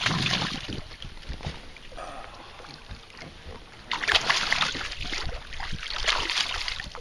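Hooked largemouth bass thrashing and splashing at the water's surface, in two bouts: a short one at the start and a longer, louder one from about four seconds in.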